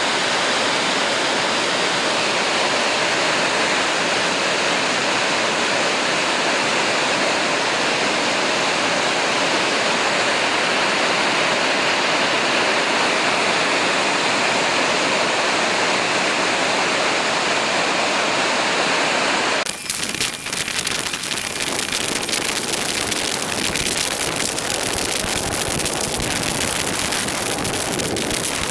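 Heavy rain pouring down in a steady roar. About twenty seconds in it cuts to a different recording of the downpour, now full of sharp, rapid ticks of drops or hail striking surfaces.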